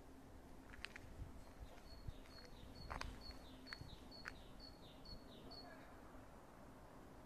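A bird singing faintly, a run of about ten short, high notes, each with a small falling tail, repeated evenly two or three times a second and stopping after several seconds. Faint outdoor ambience, with a few sharp clicks.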